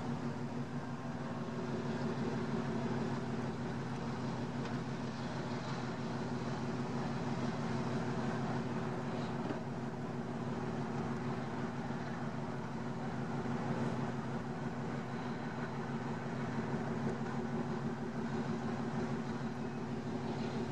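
Heavy engine running steadily, an even low drone that does not rise or fall.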